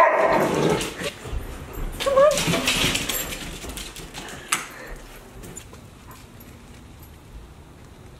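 Dogs playing, one whining with short rising and falling calls, loudest in the first three seconds. A sharp click follows about four and a half seconds in.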